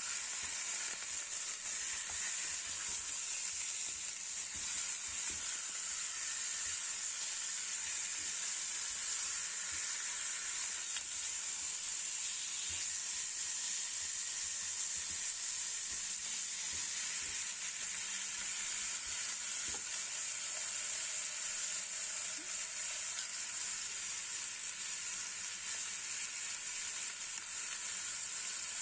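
Food frying in hot oil in a pan: a steady sizzle, with scattered faint knocks.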